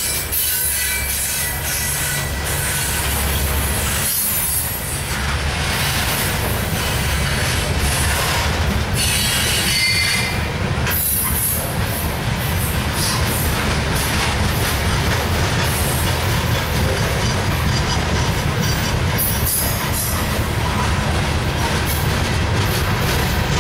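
Steel hopper cars of a long coal train rolling past on the rails: a steady heavy rumble and clatter of wheels over the track, with a high wheel squeal rising now and then, most clearly about ten seconds in.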